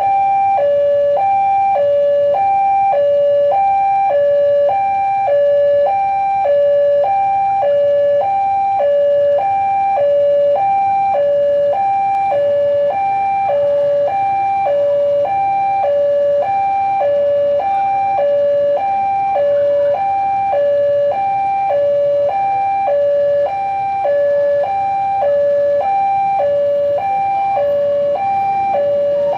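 Railway level-crossing warning alarm: an electronic two-tone signal alternating steadily between a higher and a lower tone, about one high-low cycle a second, sounding as a train approaches the crossing.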